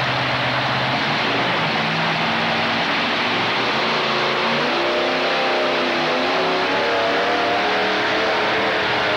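A modified pulling tractor's engines at full throttle, very loud and unbroken, the engine pitch climbing steadily through the second half as the tractor pulls down the track.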